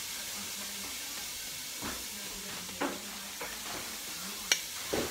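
Garlic sizzling steadily in oil in a pan, with a metal spoon clinking against a stainless steel bowl a few times; the sharpest, ringing clink comes about four and a half seconds in.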